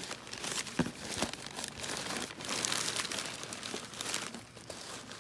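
Packaging crinkling and rustling as a boxed doll is unwrapped by hand, with a couple of sharp clicks about a second in.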